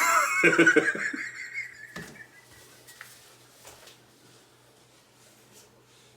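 A short burst of laughter in the first second, fading into quiet room sound with a single knock about two seconds in.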